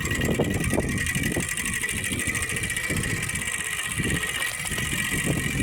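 Plastic strips fixed to a bicycle wheel flicking against the spokes as the wheel turns, a fast steady rattle that makes the bike sound like a motor engine.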